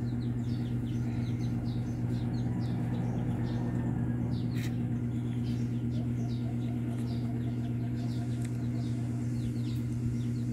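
A steady low hum runs throughout, with many short, high chirps repeating irregularly over it.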